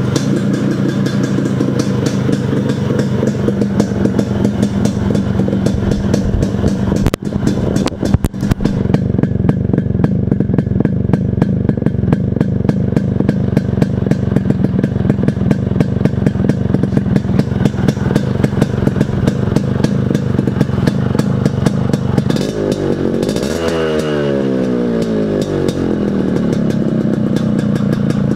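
Yamaha RX100's two-stroke single-cylinder engine idling through a six-hole silencer. Near the end the revs rise once and fall back to idle.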